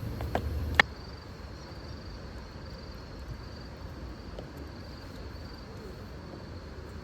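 A low rumble that cuts off with a sharp click just under a second in, then a faint, steady, high-pitched insect trill, like a cricket, over quiet outdoor background noise.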